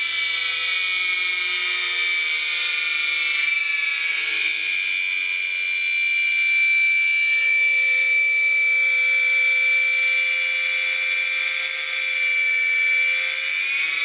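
Dishwasher pump motor spinning fast on a variable frequency drive set to about 100 Hz, well above its mains speed: a steady high-pitched whine that settles slightly lower in the first couple of seconds and begins to change pitch near the end as the drive frequency is adjusted. The owner calls it a crunchy grinding motor, its bearings dry and in need of oil.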